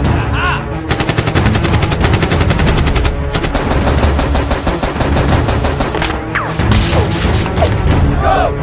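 Rapid automatic gunfire, in two long bursts of evenly spaced shots starting about a second in and again after a short break, then scattered shots near the end.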